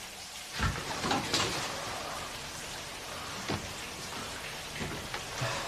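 A steady hiss with a few soft knocks scattered through it.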